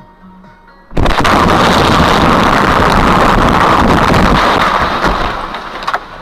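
Gas station explosion: a sudden very loud blast about a second in, followed by a loud, steady rushing noise that holds for about four seconds and then fades.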